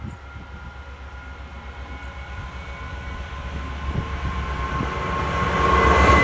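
Vossloh G 2000 BB diesel-hydraulic locomotive approaching and passing close by. Its engine runs with a low, even throb and a steady whine, growing louder throughout and loudest near the end as it goes past.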